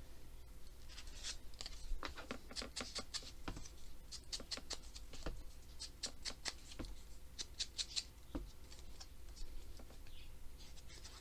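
Foam ink blending tool scrubbed in quick scratchy strokes over the edges of a paper cutout, distressing it with ink. The strokes come in runs, busiest from about two seconds in until near the end.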